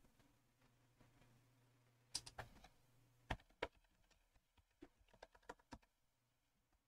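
Faint typing on a computer keyboard: a run of quick keystrokes starting about two seconds in, over a low hum that stops soon after.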